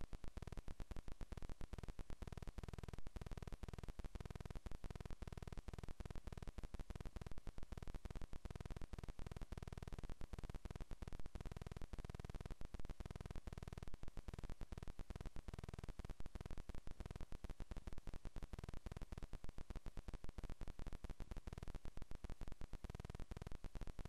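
Steady static hiss with a faint hum from a wildlife camera's audio feed, cutting out for an instant many times over; no bird call stands out.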